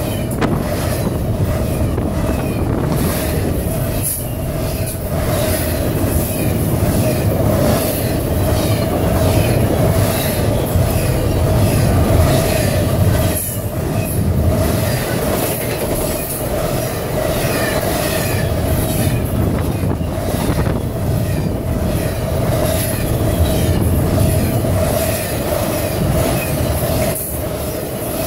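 Double-stack intermodal freight train passing close at speed: a steady rumble and rattle from the cars, wheels clicking over the rail joints, and a steady ringing tone running over the clatter.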